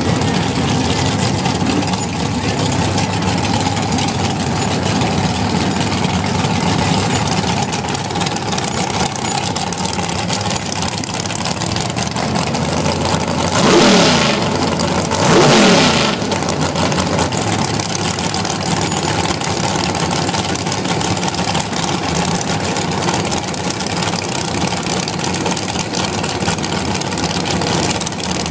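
Dragster engine idling loudly with a steady, lumpy note, then revved twice in quick succession about halfway through, each blip falling back to idle.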